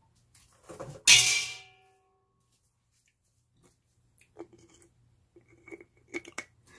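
A single sharp clink of tableware with a brief ring about a second in, then a few faint light knocks and taps near the end.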